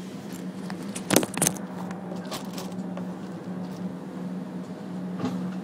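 Steady low hum of a stationary Alstom tram's onboard equipment, heard inside the driver's cab. A few sharp knocks cut through it: a loud pair a little over a second in, then fainter ones later and near the end.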